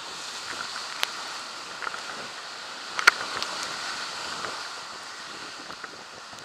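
Whitewater rapid rushing and splashing steadily around a raft, heard from on board. Sharp knocks cut through, a small one about a second in and a louder one about three seconds in.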